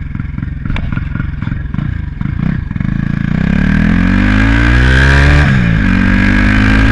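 Turbocharged Honda Titan 160 single-cylinder engine idling, then revved up over about three seconds with a rising turbo whistle, its pitch dropping suddenly about five seconds in and then holding steady. On lift-off there is no turbo flutter, only the turbo blowing.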